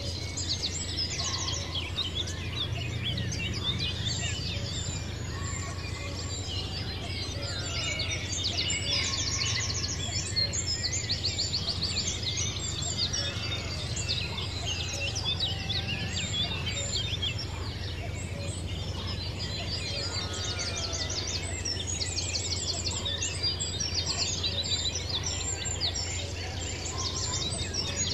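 A countryside bird chorus: many birds chirping and singing at once, with repeated rapid trills, over a steady low rumble.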